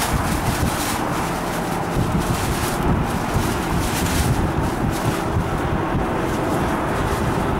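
Wind buffeting the camera microphone: a steady, uneven low rumble with a hiss over it.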